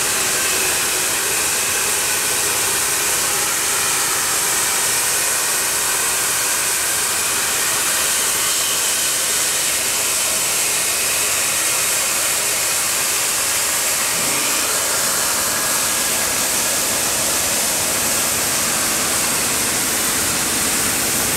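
Steam venting from a steam-heated block-moulding machine as the block is steamed in its mould: a loud, steady hiss that does not let up.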